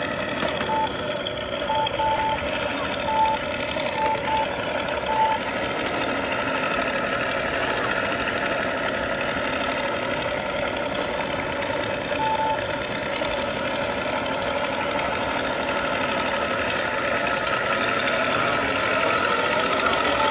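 Flightline Corsair F4U-1A RC warbird flying, with the simulated radial-engine sound from its onboard sound system running steadily over the electric motor and propeller. Short electronic beeps come several times in the first five seconds and once more about twelve seconds in.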